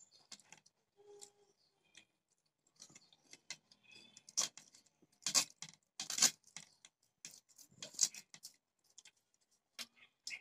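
Metal forks clicking and scraping against a plate of instant noodles as they are eaten. The clicks come at irregular intervals, with the sharpest ones through the middle.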